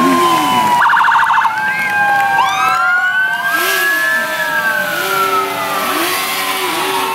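Several police sirens wailing at once, their pitches sliding up and down out of step with one another, with a fast warbling burst about a second in.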